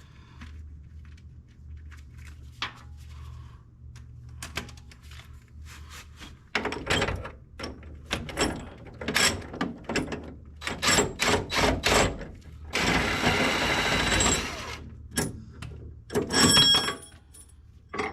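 Hand-tool work on a car's rear suspension: a string of sharp metal knocks and clicks, then a noisy sustained sound of about a second and a half, then a louder ringing metal clank, over a steady low hum.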